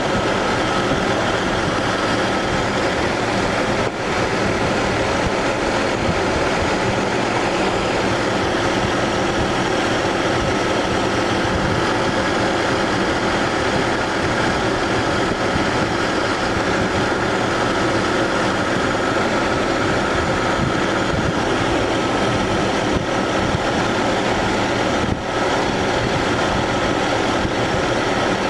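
Toyota Land Cruiser engine idling with its air-conditioning compressor engaged during a refrigerant recharge: a loud, steady mechanical running noise.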